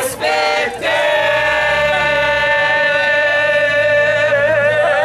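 A crowd of voices singing together, holding one long note from about a second in.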